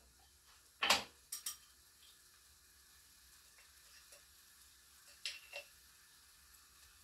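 Light clicks and knocks of a spice jar, its lid and a metal spoon being handled, the sharpest about a second in and two softer ones a little after five seconds, over a faint steady sizzle from a pan on the gas burner.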